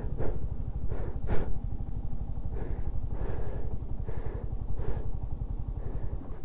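Motorcycle engine running steadily at low revs, overlaid by short rushes of noise about once a second.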